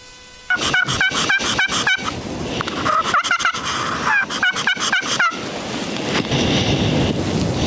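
Wild turkey gobbling loudly and close by: three rolling gobbles in quick succession, then a steady rushing noise.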